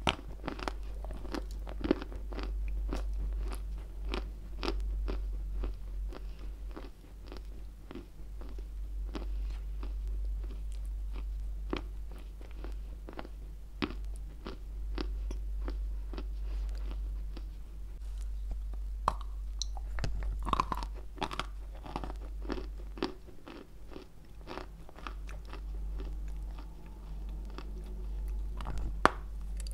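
Close-miked crunching and chewing of a chunk of White Turkestan edible clay: irregular crisp bites and crumbly chewing, with a sharper loud bite near the end.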